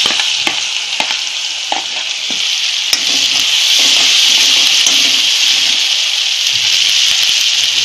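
Chopped onion sizzling in hot oil in a kadhai during the tempering (phodni) with mustard seeds and turmeric, as a steel spoon stirs it, clicking and scraping against the pan in the first couple of seconds. The sizzle is steady and grows a little louder about three seconds in.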